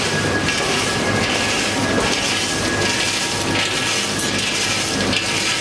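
Multihead weigher packing machine running: a steady mechanical hum and a faint high whine, with repeated rushes of rattling as pieces of fried fish skin tumble through the weigh hoppers.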